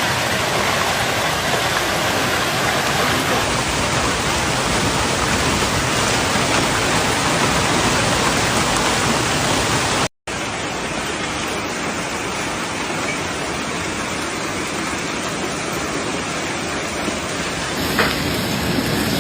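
Heavy hail and rain pouring down in a dense, steady hiss. It cuts off abruptly about ten seconds in and resumes slightly quieter.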